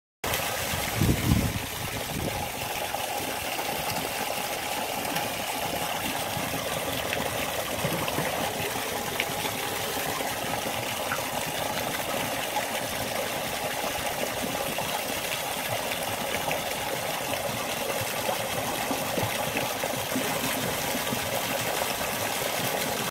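Steady rush of churning water, with a low thump about a second in.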